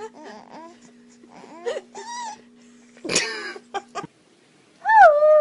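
Short animal cries over a steady hum. Then, near the end, a dog's long whine that falls in pitch.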